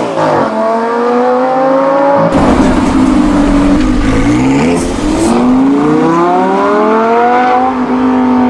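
An Audi R8 Spyder accelerating hard, its engine note rising. Then a Lamborghini Huracán's V10 revving up through the gears, its pitch climbing and then dropping at the shifts, twice.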